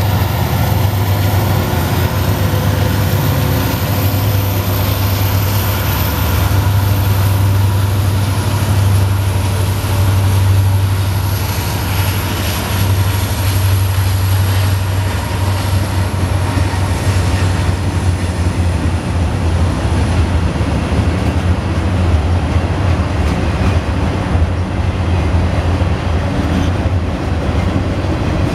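Norfolk Southern mixed freight train rolling past: a diesel locomotive moving away at the start, then a string of gondolas and boxcars passing with a steady low rumble and wheel-on-rail noise. A thin high whine slowly drops in pitch over the first twenty seconds or so.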